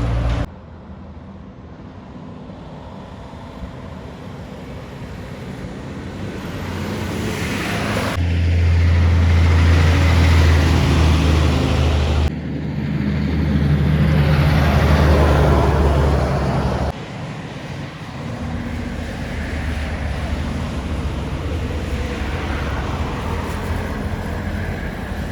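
Heavy trucks driving past on a highway, their diesel engines running with a low drone and road noise. One grows steadily louder as it approaches, and the sound changes abruptly several times where separate passes are cut together.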